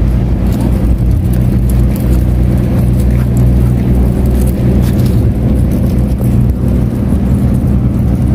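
An engine running at a steady low drone, even in pitch, with faint light clicks over it.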